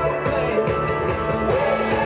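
A song playing, with guitar.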